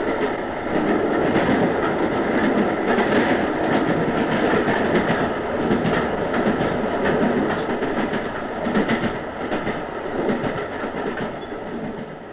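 A commuter train running on the rails, a steady rumble and rattle of wheels and carriages that eases off near the end.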